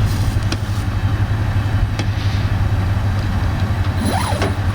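A vehicle engine idling with a steady low hum, with a couple of light clicks from handling.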